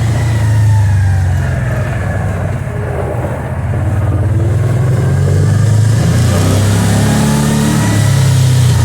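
ATV engine running under way, easing off a few seconds in and picking up again past the midpoint.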